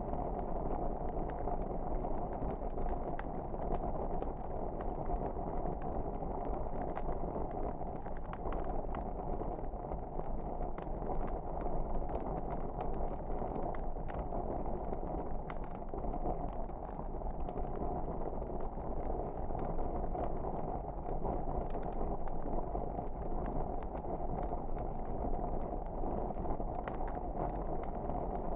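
Wood fire burning in a fireplace: a steady low rush with many small crackles and pops scattered throughout.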